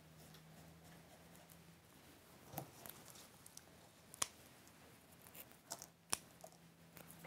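Quiet handling of cut evergreen foliage, with a few sharp snips and clicks, the loudest about four and six seconds in, as florist's scissors cut the stems.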